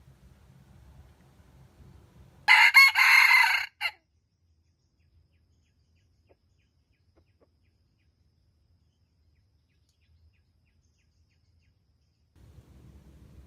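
A jungle fowl rooster crows once, a short loud crow starting about two and a half seconds in and lasting under a second and a half.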